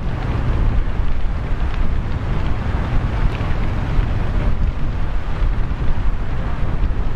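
Steady, loud low rumble of wind buffeting the microphone, mixed with the roar of a large warehouse fire burning.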